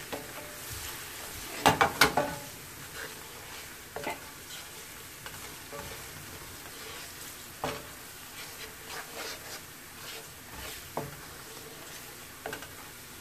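A masala of fried onions, ginger-garlic and spices sizzling in a nonstick pan while a wooden spatula stirs it. The spatula scrapes and knocks against the pan now and then, loudest twice about two seconds in. The masala is being roasted (bhuna) before water goes in.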